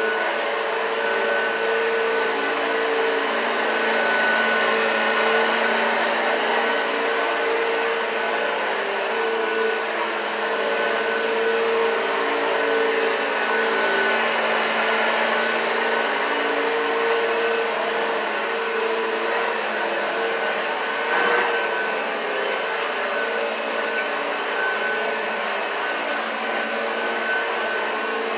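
1986 Hoover Junior U1206 upright vacuum cleaner running steadily with a motor whine while vacuuming. There is a brief knock about three-quarters of the way through.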